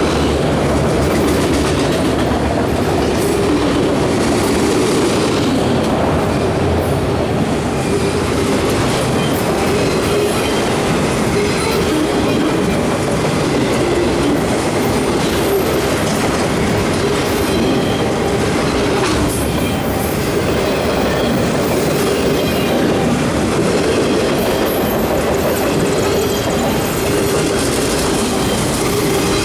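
CSX freight train's autorack cars rolling past close by: a steady, loud rumble and clatter of steel wheels on the rails, with a faint high wheel squeal now and then in the second half.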